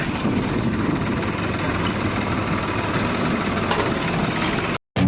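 Diesel engine of a JCB 3DX backhoe loader running steadily. It cuts off abruptly near the end, and guitar music with a steady beat starts.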